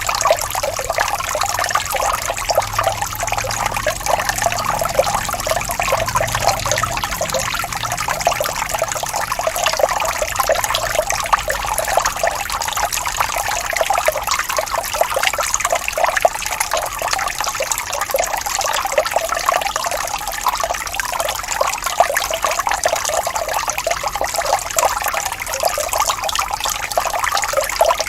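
Small waterfall: water splashing and trickling steadily, with a fine, busy patter.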